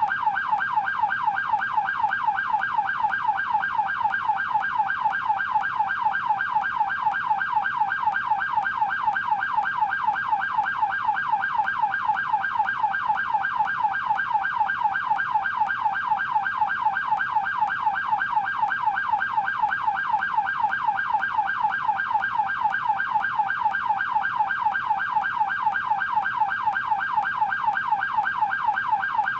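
Canadian police car siren in yelp mode: a rapid, steady, repeating up-and-down wail that cycles several times a second without a break.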